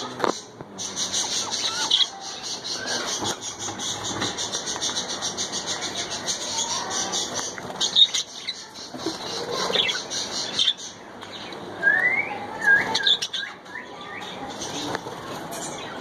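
Small caged parrots (budgies) chattering, a fast, steady high pulsing that stops about eleven seconds in, followed by a few short rising chirps.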